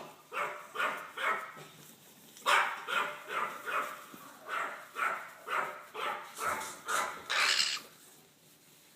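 Black-headed caique calling in a string of short, sharp, bark-like calls, about two a second, with brief pauses between runs.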